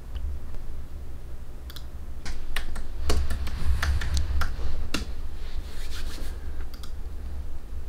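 Typing on a slim Apple computer keyboard: irregular quick keystroke clicks, clustered in a burst in the middle, over a low steady hum.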